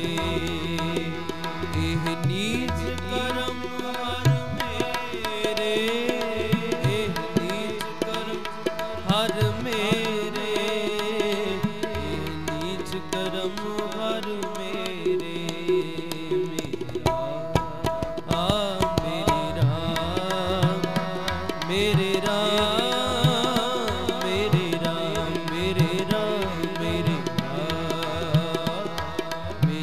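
Instrumental passage of Sikh shabad kirtan: harmonium holding and moving through a melody over tabla strokes with deep bass thuds.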